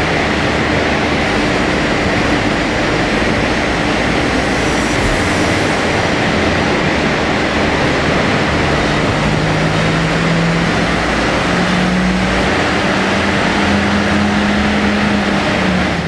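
Renault Scenic's 1.2 TCe turbocharged four-cylinder petrol engine under full throttle on a chassis dynamometer during a power run, its note climbing steadily in pitch as the revs rise through the second half and cutting off near the end. A loud steady rush of the spinning rollers and air lies under it throughout.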